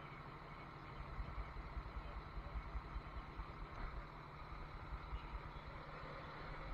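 Cummins ISL inline-six diesel idling steadily, a low even hum, with irregular low rumbling from wind and handling on the microphone starting about a second in as the camera is moved.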